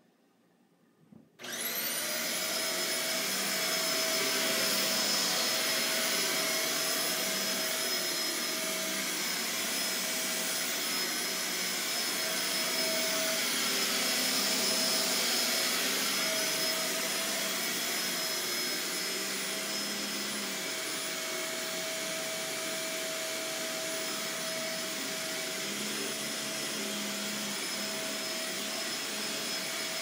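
A Shark Navigator upright vacuum cleaner is switched on about a second and a half in. Its motor spins up quickly to a steady whine, then runs on steadily as it is pushed back and forth over carpet.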